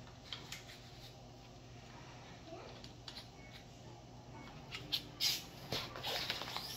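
Light clicks and knocks of an air rifle being handled, with a faint short squeak in the middle; the knocks grow louder near the end as the rifle is laid down onto a padded nylon rifle case.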